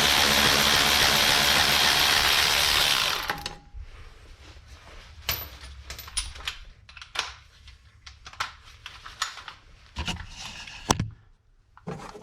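Power tool running steadily for about three and a half seconds as it spins out a rear hub assembly mounting bolt, then cutting off abruptly. After it come a series of separate sharp metallic clicks and clinks of tools and loose bolts being handled.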